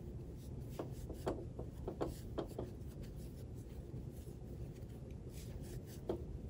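Faint rubbing of chunky yarn on a crochet hook with scattered light clicks, mostly in the first few seconds, as the yarn is wrapped over the hook for a puff stitch.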